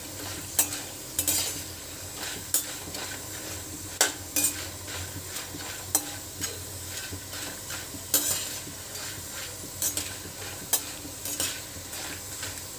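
Sandge, sun-dried lentil dumplings, frying in oil in a stainless-steel kadhai: a steady sizzle, with a steel slotted spoon scraping and clinking against the pan again and again as they are stirred.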